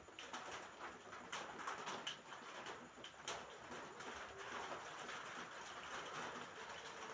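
Rain falling on a roof: a steady hiss of rain with many irregular taps of individual drops hitting the roof.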